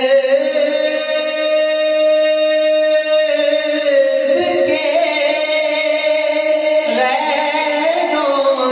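A man singing a naat in Urdu into a microphone, unaccompanied, drawing out long held notes with slow melismatic turns.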